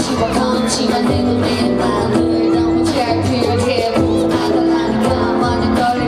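Live pop band music through a PA: acoustic guitar, drums and bass, with a woman singing.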